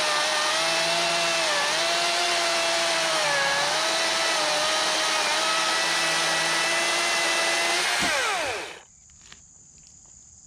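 Craftsman V60 brushless cordless chainsaw cutting through a pine log: a steady electric motor whine that dips briefly in pitch twice under load. About eight seconds in the whine falls in pitch and winds down to a stop, followed by a few faint clicks.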